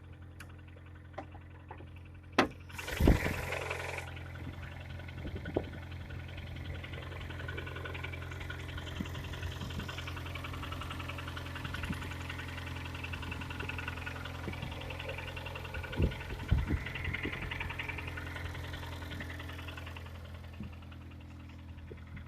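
Kia Sportage's G4KD 2.0-litre four-cylinder petrol engine idling cold with a rapid knock: the engine is worn out and due for a full rebuild, with scored cylinders suspected. A few loud clunks stand out about two to three seconds in and again around sixteen seconds.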